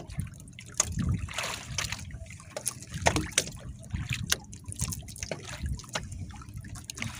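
Water lapping and splashing against the hull and outriggers of a drifting outrigger boat, in irregular slaps and trickles.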